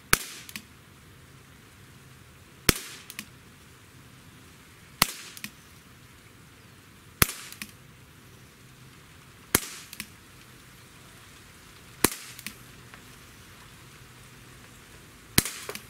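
Daisy Powerline 408 CO2 pistol firing .177 lead pellets in slow aimed fire: seven sharp cracks, one every two to three seconds, each followed by a fainter tick.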